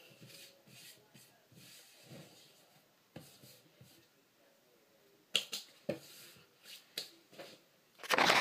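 A few sharp, short clicks about halfway through, then a loud, close rustle near the end as hair brushes over the phone's microphone.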